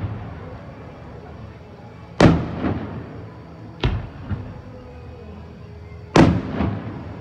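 Aerial fireworks shells bursting: three booms, about two seconds in, a smaller one near four seconds, and a loud one a little past six, each trailing off in echoes.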